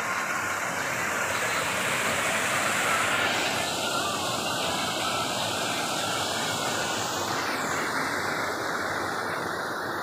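Rocky jungle stream rushing over boulders in small cascades, a steady rushing hiss of white water.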